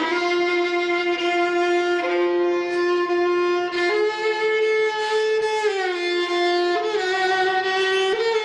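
Music: a violin playing a slow melody of long held notes that slide from one pitch to the next.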